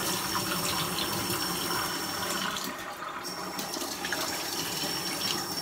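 Kitchen tap running steadily, the water splashing over a head of short wet hair and into the sink.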